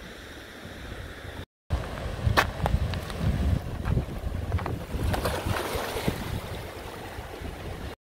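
Waves washing and splashing against a rocky shore, with wind buffeting the microphone. The sound drops out for a moment about a second and a half in, then the splashing comes back rougher and more broken.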